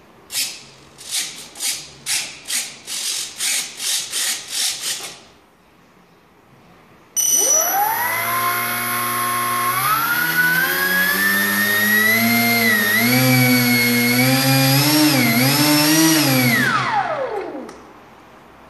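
About a dozen short buzzes in quick succession, then the model jet's 2836-size 2700 KV brushless outrunner motor spins its pusher propeller up with a rising whine. The pitch swings up and down several times as the throttle is worked, then winds down near the end.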